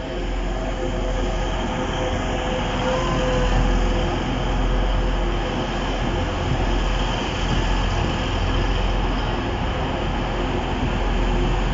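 Two coupled Class 185 diesel multiple units drawing into a station platform and passing close by: their underfloor Cummins diesel engines running and the wheels rumbling on the rails, with faint steady whining tones.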